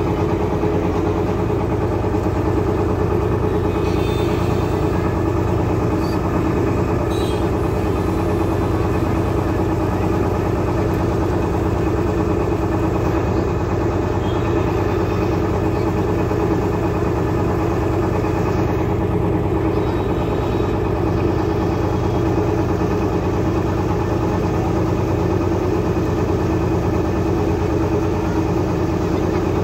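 A boat's engine running steadily at an even speed, one unchanging drone.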